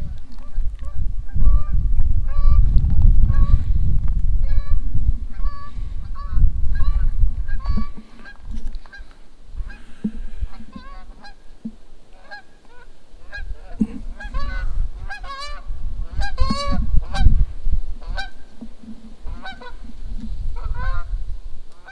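Geese honking again and again, the calls coming thicker and overlapping in the second half, over a low rumble of wind on the microphone that dies away about eight seconds in.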